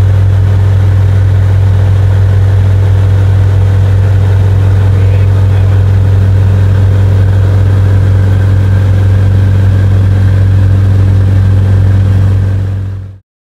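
Jabiru 170's four-cylinder Jabiru 2200 engine and propeller running steadily at takeoff and climb power, a loud even drone heard inside the cabin. It fades out and stops shortly before the end.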